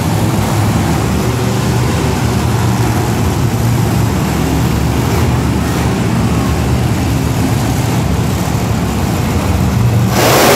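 Monster truck engines, supercharged big-block V8s, running loud in a steady deep rumble with revving, rising to a louder surge near the end.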